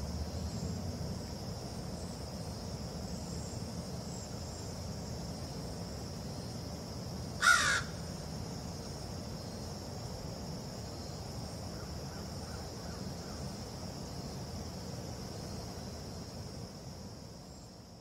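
A crow gives one short, harsh caw about halfway through, over a steady high-pitched drone and low background rumble that fade out near the end.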